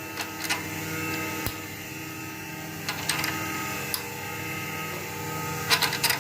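Jet 22-44 drum sander running with its conveyor belt moving: a steady mechanical hum, with scattered light clicks and knocks and a short cluster of them near the end.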